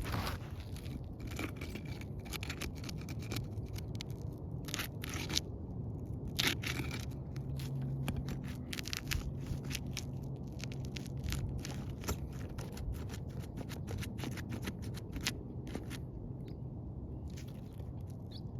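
A flat pry bar scraping and prying under brittle, thin asphalt shingles, giving irregular crunching and crackling scrapes.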